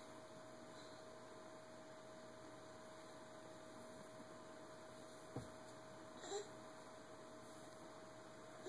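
Near silence: room tone with a faint steady hum. A soft single thump comes about five seconds in, and a brief faint sound follows about a second later.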